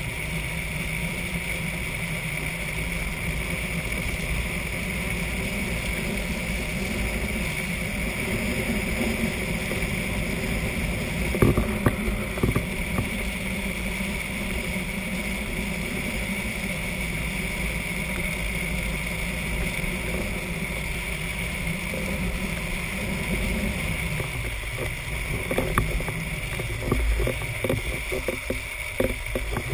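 Drift trike rolling fast downhill on asphalt: a steady rush of wind on the camera microphone mixed with the rumble of its wheels on the road. A few sharp knocks come about a third of the way in, and a cluster of them near the end.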